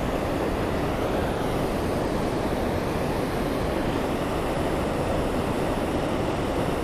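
Steady rushing of river water pouring over a low-head dam spillway, an even noise with no breaks.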